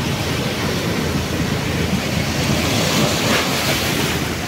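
Surf breaking and washing up the beach, with wind on the microphone. A wave's hiss rushes in about three seconds in.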